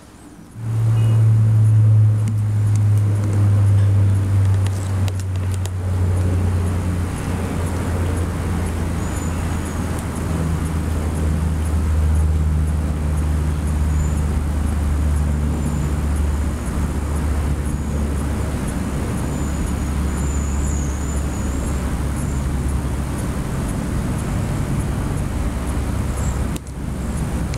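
Steady low engine-like hum, as of a motor vehicle running, that starts abruptly about half a second in and sinks slowly in pitch over the first ten seconds before holding level.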